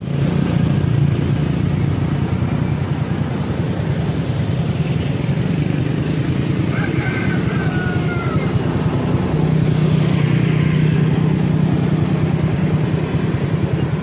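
Motorcycle engine running steadily under way, a low hum heard from the bike itself.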